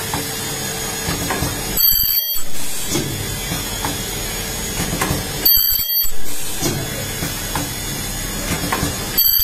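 Ultrasonic plastic welding machine running repeated weld cycles: a brief, high-pitched squeal about every three and a half seconds, twice in full and once more at the very end, each followed by a short louder swell of machine noise, over a steady mechanical background.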